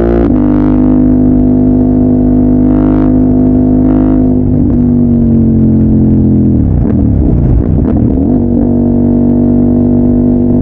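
CFMOTO 800MT's parallel-twin engine running through a Yoshimura full-system exhaust, a loud, steady deep drone. About seven seconds in, the pitch dips and wavers briefly, then settles again.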